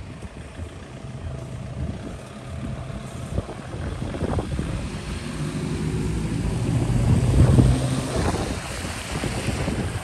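A motor vehicle drives past, its engine hum growing louder to a peak about seven seconds in and then fading, with wind buffeting the microphone.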